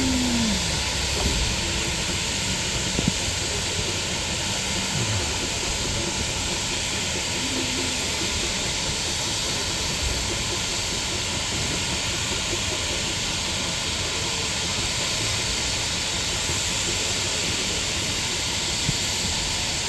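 Steam locomotive blowing off steam: a steady hiss.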